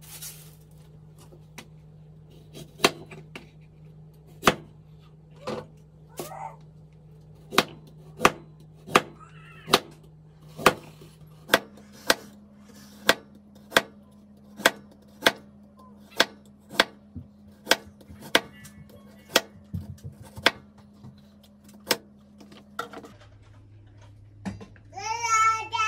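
Chef's knife slicing a carrot into rounds on a plastic cutting board: a steady run of sharp chops, about one and a half a second. A child's voice cries out near the end.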